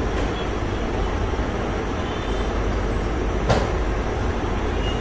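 Steady low mechanical noise, with a single sharp click about three and a half seconds in.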